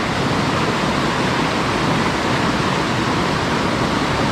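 Creek water rushing, a steady even rush of flowing water.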